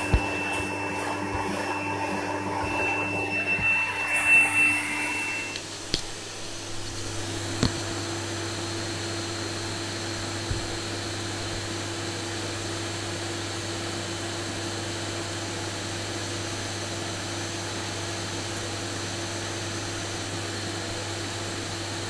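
Canister vacuum cleaner running steadily, pulling air through a homemade cyclone dust separator. A thin whistle sounds in the first few seconds, then the sound settles into a steadier drone with a few scattered clicks.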